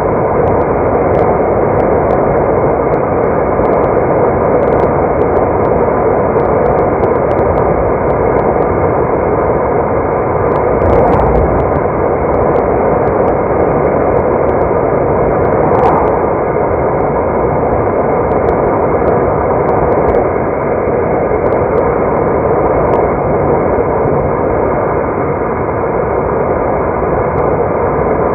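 A car driving along the road: steady tyre, road and engine noise with small faint clicks scattered through it, swelling slightly twice.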